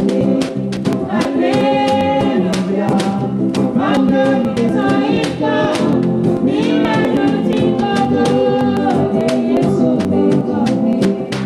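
Music with singing over instrumental accompaniment, driven by a steady beat of about three strokes a second.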